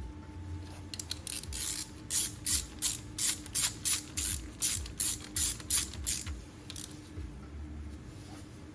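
Ratchet wrench worked in quick back-and-forth strokes: about a dozen short rasping bursts of clicks, two or three a second, that stop about two seconds before the end.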